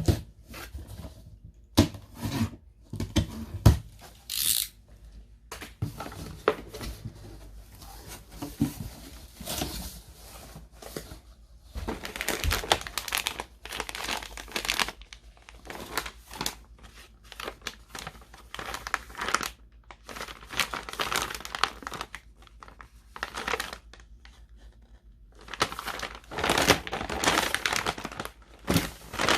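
Packaging being torn open and crinkled by hand: irregular rustling and ripping in fits and starts, with a few sharp clicks in the first few seconds.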